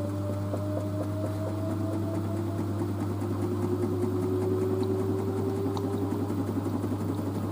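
LG DirectDrive F1496AD washer dryer's direct-drive motor whining, its pitch rising slowly and steadily as the drum speeds up in the spin, over a constant low hum.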